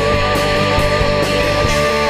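Rock band demo recording: a lead note held over steady drums and cymbals, with distorted guitar underneath.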